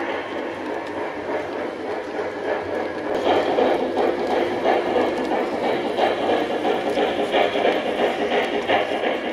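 Lionel LIONMASTER Challenger 4-6-6-4 model train running on the track: a steady rolling rumble of wheels and motor with a rhythmic clatter, growing louder about three seconds in as the locomotive comes close.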